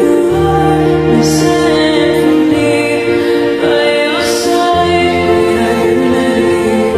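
Background music: slow, sustained chords over a held bass line, with a singing voice.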